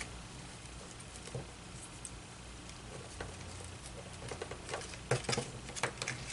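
Faint, scattered clicks and taps of wooden spring clothespins being handled and clipped onto cardstock wheel pieces, with light paper handling. The clicks come closer together and sharper in the last couple of seconds.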